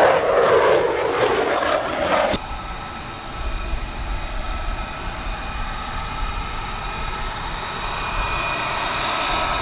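F-35 fighter jet flying past overhead with loud rushing engine noise. About two seconds in, this cuts to the steady engine whine of F-35s waiting on a runway, with high whistling tones over a low rumble, growing a little louder near the end.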